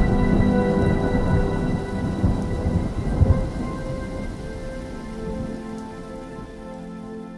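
Intro sound effect: a low thunder-like rumble and rain-like hiss under several sustained ringing tones, all fading away gradually.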